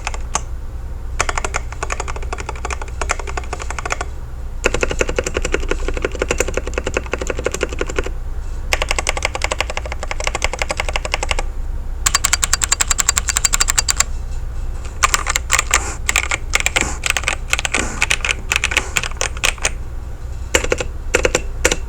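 Typing on a Camiysn MageGee Light84 transparent mechanical keyboard with its stock clear switches, which the reviewer suspects are equivalent to tactile brown switches: runs of rapid key clicks broken by short pauses, with a very fast even run of clicks about halfway through.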